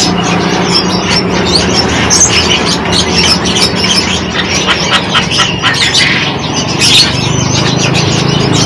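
Songbirds chirping and squawking in quick, overlapping short calls, over a steady low hum.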